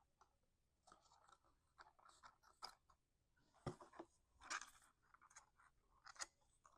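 Faint rustling and crinkling of cardstock being handled and pressed while paper tabs are glued and worked into place, with scattered small crackles and one sharper tap a little past halfway.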